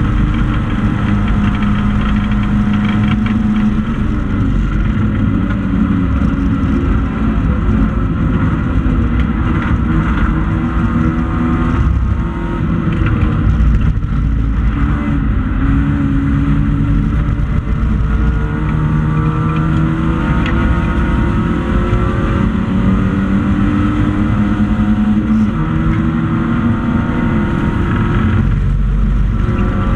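Race car engine heard from inside the stripped cabin, running hard at racing revs, its pitch climbing and then falling back again and again as the driver works through the gears and lifts for corners.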